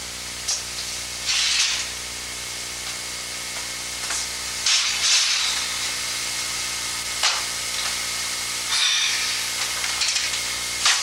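Steady hiss with a low electrical hum, as on an old video soundtrack, with a few brief louder noises about one and a half, five, seven and nine seconds in.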